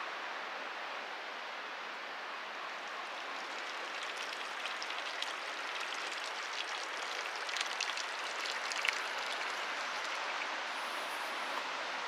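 Steady rush of flowing water, with a run of small crisp ticks over it from about four seconds in to about nine seconds.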